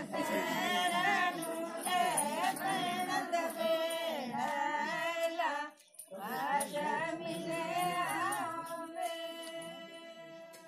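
Women singing a traditional Himachali wedding song in a bending, melismatic melody, with a brief pause about six seconds in. The song then settles on a long held note that slowly fades away.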